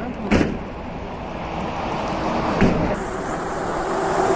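A vehicle engine running steadily, with two sharp knocks about two seconds apart.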